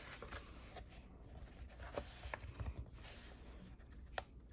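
Coloring book pages being turned and pressed flat by hand: soft paper rustling with a few light ticks, the sharpest near the end.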